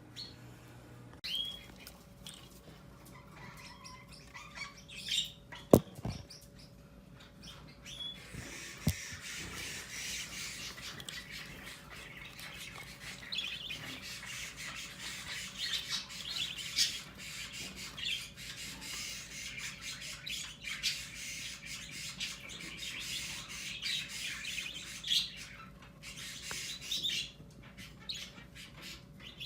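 Budgerigars calling: a few separate high chirps, then from about eight seconds in a dense, continuous squawking chatter that fades out near the end. Two sharp clicks come about six and nine seconds in.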